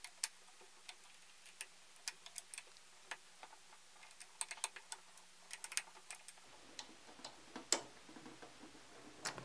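Hex key turning the focus motor's mounting bolts in small turns as they are tightened: faint, irregular metallic clicks and ticks, one somewhat louder near the end.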